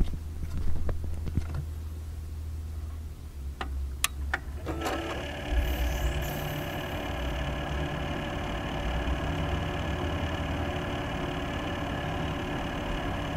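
A few clicks over a low hum, then about five seconds in a PC powers up and its Corsair H100 water-cooling pump starts a loud, steady noise with several steady tones. The noise comes from the pump, not the fans: a known loud-pump fault of some H100 units.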